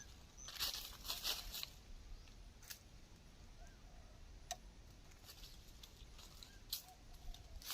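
Fowl scuffling in dry leaf litter: a burst of rustling about a second in, then scattered sharp ticks and a few soft low clucks.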